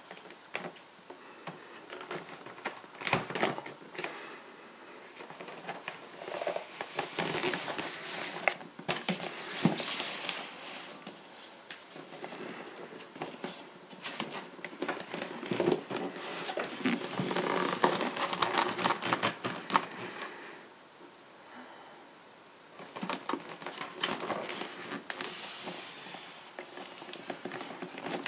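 Cardboard box of brake discs being handled and turned over in the hands: rustling, scraping and many small knocks of the cardboard, with a quieter stretch about three-quarters of the way through.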